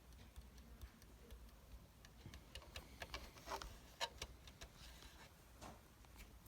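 Near silence with scattered faint clicks and taps, a small cluster of them about three and a half to four seconds in.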